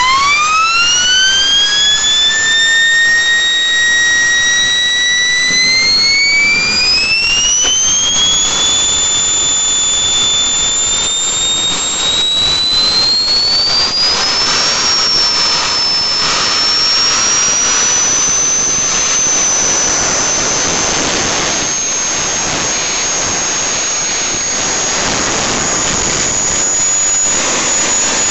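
Microturbo TJ24 turbojet engine spooling up on a ground test run: a loud jet roar with a whine that climbs fast in the first two seconds, steps up again about six seconds in and again around fourteen seconds, then holds high and steady.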